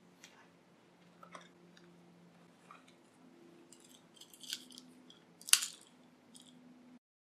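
Handling noise: small clicks, rustles and crackles as hands fiddle with a metal ring close to a clip-on microphone, with one sharp, loud click about five and a half seconds in, over a faint low hum.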